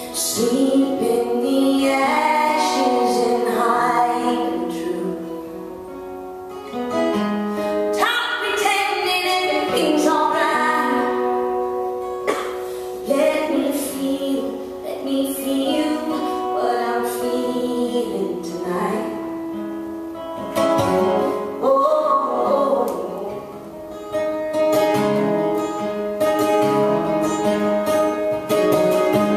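A woman singing a song in phrases with short breaks between them, accompanying herself on an acoustic guitar.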